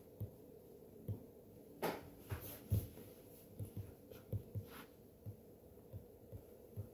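Stylus writing on a tablet screen: a string of faint, irregular taps with a few short scratchy strokes.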